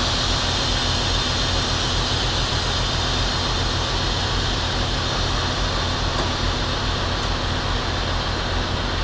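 Semi truck's diesel engine idling: a steady low hum under an even hiss.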